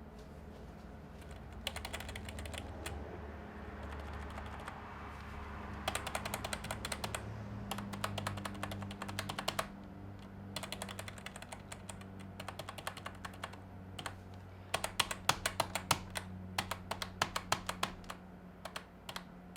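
Typing on a membrane keyboard: several runs of rapid plastic key clicks, over a low steady hum.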